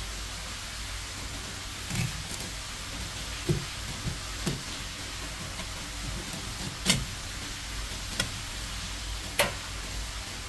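Kitchen knife and fish on a cutting board while a rock bream is filleted: about seven sharp taps and knocks, a second or more apart, over a steady hiss.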